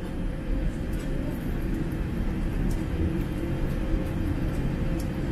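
Steady low rumble of a jet airliner taxiing, heard from inside the cabin, with a faint steady hum over it.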